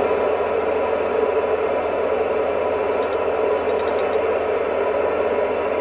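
Loud, steady FM static from a ham radio transceiver tuned to the ISS repeater downlink, starting abruptly as the squelch opens on noise with no voice in it. A few faint clicks sound over it.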